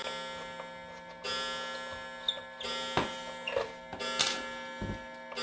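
Several clocks chiming out of step with one another: a run of struck notes, each ringing on and overlapping the next, over the ticking of clocks.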